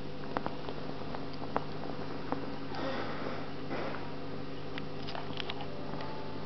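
Steady low hum of aquarium equipment, with a few sharp clicks scattered through it and some soft breathy rustles near the microphone.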